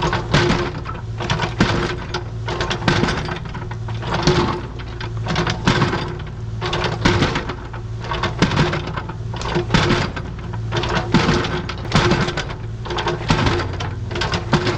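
Engine-driven construction machine running steadily, with a fast mechanical clatter that swells and fades about every second and a half.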